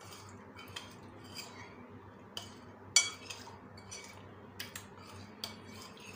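Metal spoon stirring custard powder into milk in a ceramic bowl, with scattered light clinks of the spoon against the bowl and one louder clink about three seconds in.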